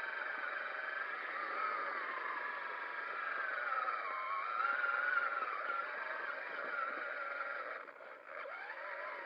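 Traxxas Summit RC truck's electric motor and gearbox whining, the pitch rising and falling as the throttle changes. It is heard through a narrow-band, hissy FPV audio link, and drops away briefly near the end.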